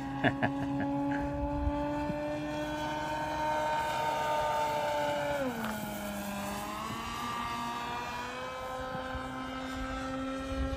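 Electric motor and propeller of a half-scale RQ-7 Shadow RC plane running steadily overhead. Its pitch drops sharply about five and a half seconds in as it flies past, then rises a little, and drops again near the end.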